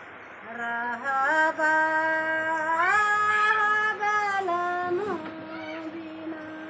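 A woman singing a slow unaccompanied folk song in long drawn-out notes. The melody steps up about three seconds in and falls back a second and a half later, with a quick waver before a lower held note.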